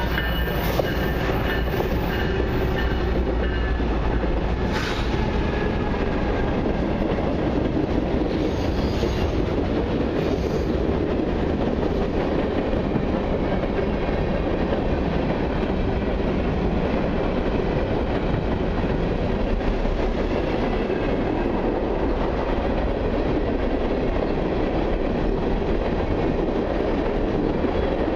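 Long CN freight train passing close by: the diesel locomotives go by in the first few seconds, then a steady rumble and clickety-clack of covered-hopper and gondola wheels over the rails.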